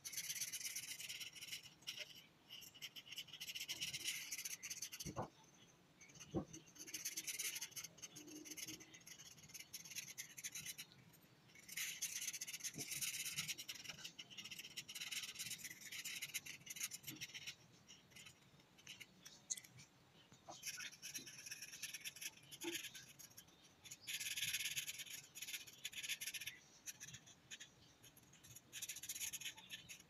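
Felt-tip marker scratching on paper in bursts of rapid back-and-forth colouring strokes, with short pauses between bursts and a couple of light knocks about five and six seconds in.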